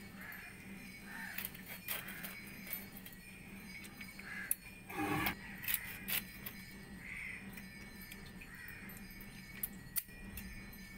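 Small fish being cut and cleaned on a boti blade: irregular scraping and sharp clicks of fish against the iron blade and of the cut-off scraps. A brief louder pitched sound about five seconds in.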